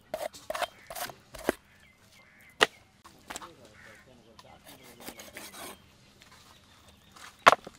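Knife scoring a raw whole duck on a wooden chopping block: sharp knocks of the blade against the wood, several in quick succession at first and a loud double knock near the end, with soft rubbing of the blade and carcass in between.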